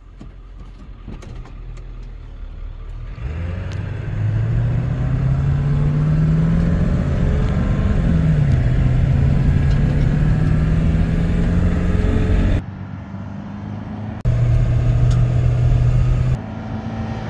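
Ford 7.3 L Power Stroke turbo-diesel V8 pulling the truck up through the gears, heard from inside the cab. The engine note climbs steadily for several seconds, then drops sharply about eight seconds in as the automatic upshifts, and settles into a steady drone at cruise.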